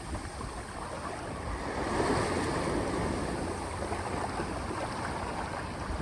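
Outdoor wind and water noise, a steady whooshing haze that swells about two seconds in.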